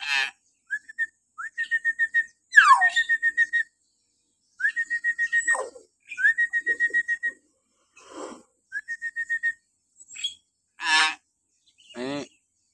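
Hill myna (beo) giving shrill, rapid strings of repeated high whistled notes, about six a second, in half a dozen bursts. Two falling whistles and a few short harsher calls are mixed in.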